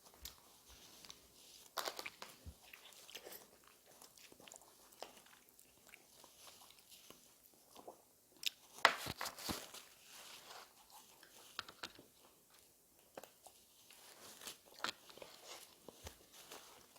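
Quiet close-up eating sounds: a person biting and chewing crunchy food, scattered small crunches and clicks, with a louder run of crunching about nine seconds in.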